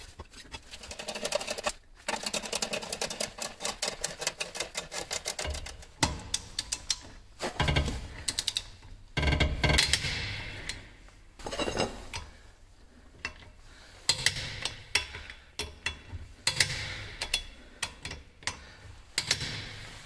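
Socket wrench ratchet clicking in fast runs as it works the lug nuts of a steel wheel, broken by a few heavier clunks of metal on metal.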